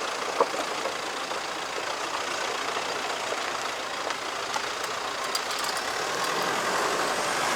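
Off-road vehicle driving on a rough mountain dirt road: a steady rush of tyre and engine noise with a few light clicks, growing slightly louder near the end.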